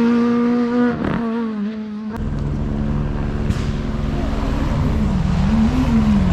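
Rally car engine held at high revs, then easing off about a second in. After an abrupt change about two seconds in, a rally car engine is heard again over a low rumble, its note rising and falling several times.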